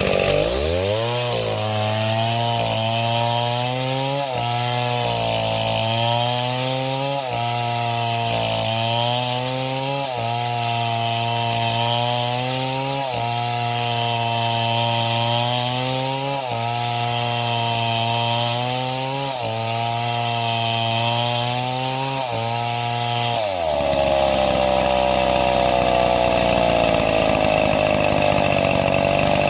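Two-stroke chainsaw revving up and cutting through wood; its engine pitch sags under load and recovers about every three seconds. About three-quarters of the way through, it runs free at a steady high rev as the cut ends.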